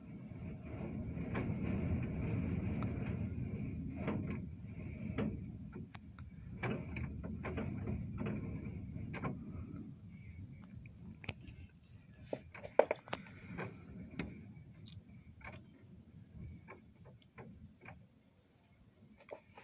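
Low rumble of blizzard wind gusting against the building, swelling twice and then easing off, with scattered small clicks and taps and one louder knock about two-thirds of the way through.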